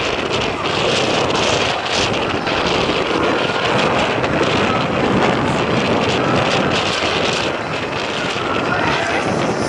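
Westland Whirlwind HAR10 helicopter hovering just above the ground, its Gnome turboshaft engine and main rotor running with a loud, steady, even noise.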